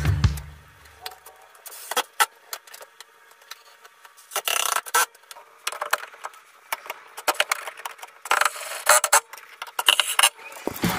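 Handling noise from tools and hardware: scattered clicks, knocks and rattles of metal parts and a bar clamp being moved against a wooden board, with a few short scraping stretches.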